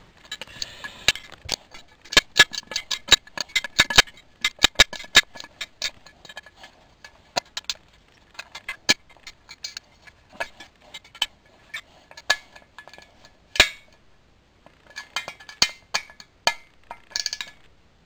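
Small metal parts clinking and rattling as they are handled on a workbench: a quick run of sharp clinks over the first few seconds, then scattered clinks with one louder knock about halfway through.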